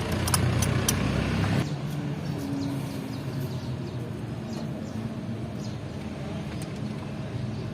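Hand tools clicking sharply a few times as spark plugs are unscrewed, over a steady low mechanical hum; the clicking and the louder part of the hum stop after about a second and a half.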